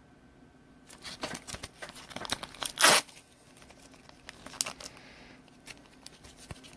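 Crinkling and rustling of plastic card sleeves and team bags being handled as trading cards are slipped in, building to one loud short rasp about three seconds in, followed by a few light clicks.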